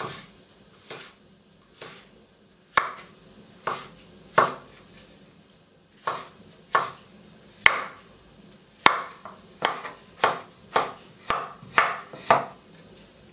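Kitchen knife slicing a king oyster mushroom on a wooden cutting board: a series of separate knocks of the blade on the board, about one a second at first, coming faster, about two a second, near the end.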